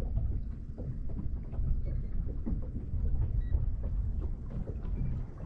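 Wind buffeting the microphone as a steady, uneven low rumble, with small waves lapping against the boat's hull.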